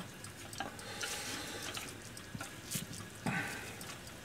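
Mackerel pieces sizzling on a hot metal pan in a toaster oven, a steady hiss with faint crackles. Chopsticks click lightly against the pan now and then as the fish is turned.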